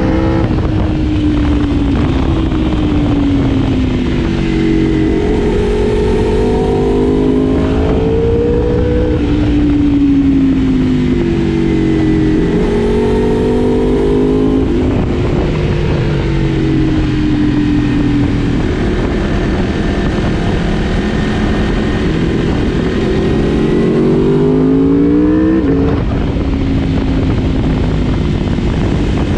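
Four-cylinder litre-class sport motorcycle engine under way, revving up and easing off over and over, its pitch climbing and then dropping with each gear change or roll-off. A steady rush of wind and road noise sits underneath.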